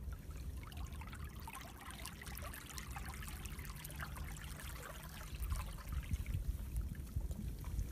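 Seawater trickling and gurgling as it flows through a channel between rocks on a rocky shore, many small splashes over a low rumble that grows stronger in the second half.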